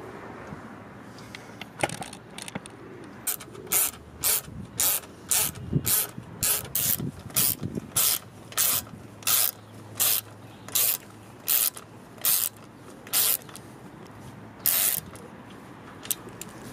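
Small ratchet wrench tightening the exhaust clamp bolt on a motorcycle silencer joint. Each back-swing gives a short run of ratchet clicks, about twenty runs in all. They come about two a second at first, and the strokes slow and spread out as it goes on.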